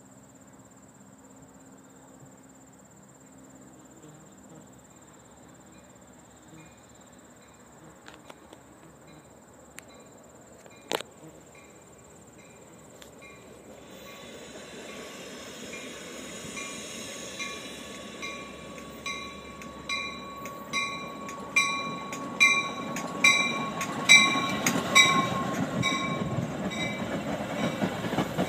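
Metra bilevel commuter train, pushed by its diesel locomotive with the cab car leading, approaching and rolling into the station: a rising rumble with a steady high squeal as it slows, then its wheels clicking and thumping over rail joints, louder as the coaches pass close. A bell rings about twice a second throughout the approach.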